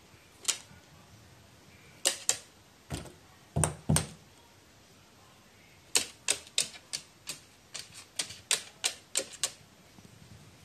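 A crow pecking at a hard surface with its beak: a run of sharp, irregular taps and knocks. Two or three heavier knocks come around three to four seconds in, then about ten quicker taps from six seconds in.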